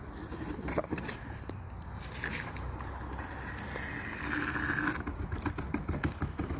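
Cardboard boxes scraping and sliding over asphalt as a toddler pushes them along: a continuous rough scrape with a few knocks.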